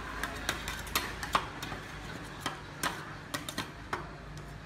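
Metal spatulas tapping and scraping on the frozen steel plate of a rolled ice cream machine as the ice cream is chopped and gathered into a pile: irregular sharp clicks, several a second.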